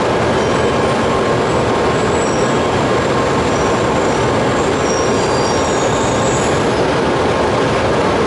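E2 series Shinkansen train running into the platform and slowing to a stop, a steady loud rumble of the passing train. Faint high-pitched squeals run through the middle of it.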